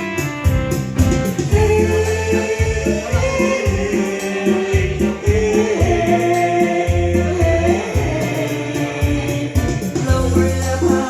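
Music: a sung melody with held notes over a band backing and a recurring bass beat.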